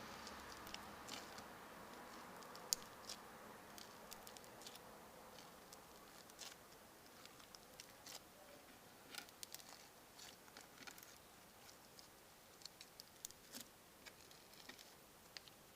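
Crunchy slime being pressed and squeezed by hand, giving faint, irregular small pops and crunches, with one sharper pop about three seconds in. A faint hum of passing traffic fades out over the first few seconds.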